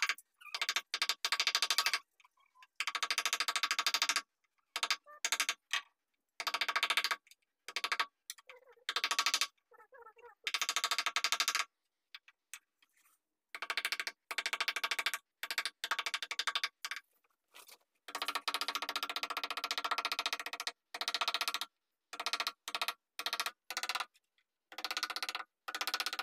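Wood-carving chisel tapped rapidly into wood, in bursts of quick, evenly spaced taps lasting a second or two, with short pauses between them.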